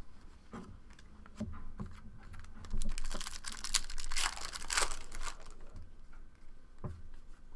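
Trading cards being handled and flipped through by hand: a run of quick clicks and rustles, busiest about three to five seconds in.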